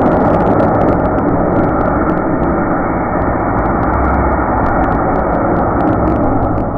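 A steady, dull roar with no high end and no distinct bang: the beer-can cannon's shot and the potato's impact, slowed down with the slow-motion picture.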